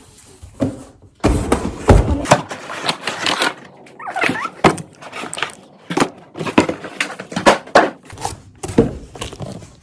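A delivery package being handled and opened: a run of irregular knocks, thuds and rustling scrapes of packaging.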